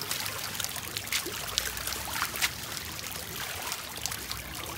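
Dogs' paws splashing through shallow floodwater over grass and paving, with irregular sharp splashes over a steady hiss of trickling water.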